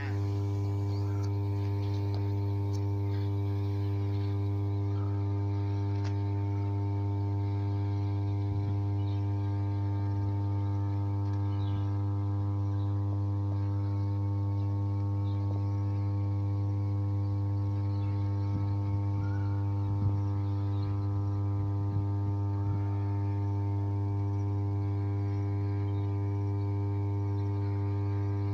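5 MVA, 33/11 kV substation power transformer humming steadily: a deep, unchanging hum with a ladder of higher overtones.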